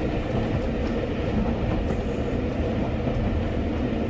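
Steady rumble of a moving steam-hauled passenger train, heard from inside the carriage.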